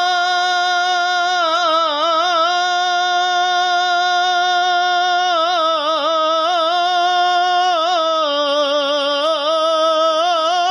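A solo voice singing a naat without instruments, holding one long note and decorating it with quick wavering runs a few times along the way.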